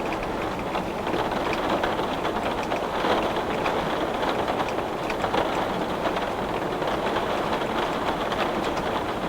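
Heavy rain beating on a glass pane: a steady, dense hiss with many small sharp drop ticks.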